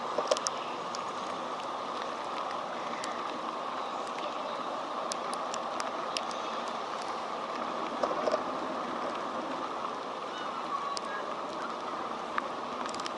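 Steady typhoon rain falling, a constant hiss with scattered sharp ticks of drops.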